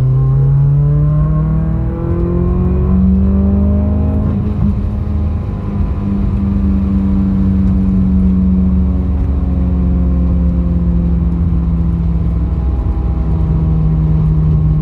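2020 Subaru WRX's turbocharged flat-four engine accelerating at wide-open throttle in third gear, rising in pitch for about four seconds. It then comes off the throttle and settles to a steady cruise. The pull is one during which cylinders 1 and 4 misfire, according to the owner.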